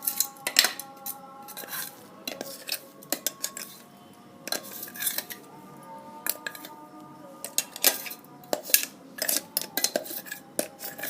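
Metal spoon clinking and scraping against steel kitchenware in many irregular, sharp strikes, as the ground tamarind paste is handled.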